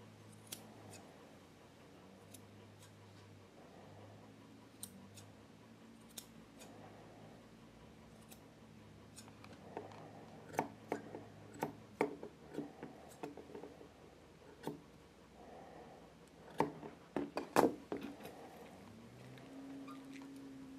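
Steel grooming shears snipping through a dog's leg and foot hair: a few scattered snips at first, then a quick run of snips in the second half.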